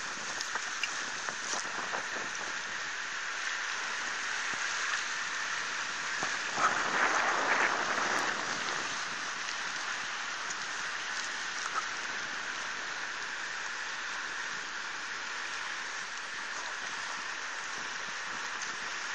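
Steady rush of a river running over rocks, swelling louder for about two seconds near the middle. A few faint clicks near the start.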